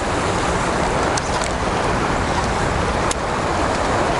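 Steady rushing of river current in the tailwater of a lock and dam, an even noise with a few faint clicks about a second in and again near three seconds.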